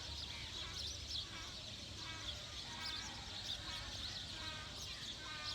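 Many birds chirping and calling over one another in short, repeated notes, over a steady low rumble.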